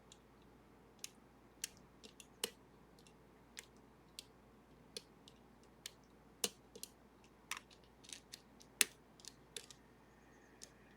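Irregular small metallic clicks and ticks of lock picks working the levers of a Sargent and Greenleaf 4440 series lever lock, about twenty of them at uneven spacing, the sharpest a little past the middle.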